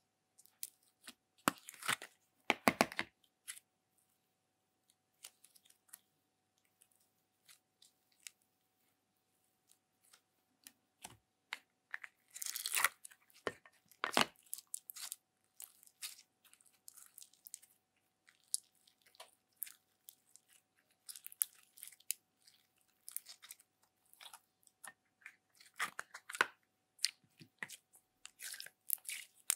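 Slime squeezed and pulled apart by hand, giving irregular sticky crackles, pops and crunches. There is a dense run of crackling near the middle and sparser clicks elsewhere, over a faint steady hum.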